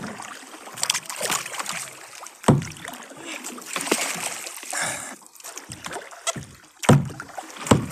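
Kayak paddle dipping and splashing in the water in uneven strokes, with two sharper knocks about two and a half seconds in and near the end.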